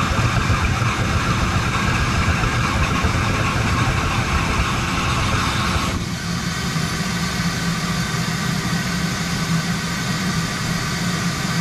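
A vacuum runs steadily, drawing suction on a tractor's hydraulic fill opening so the hydraulic fluid stays in while the filter is off. About six seconds in, its sound changes abruptly and the higher-pitched part drops away.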